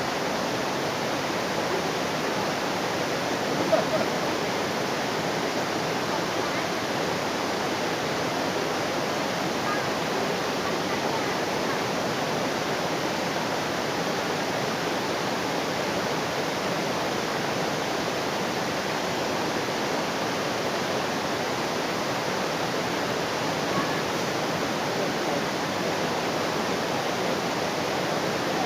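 Waterfall rushing: a steady, even roar of falling water, with one brief louder sound about four seconds in.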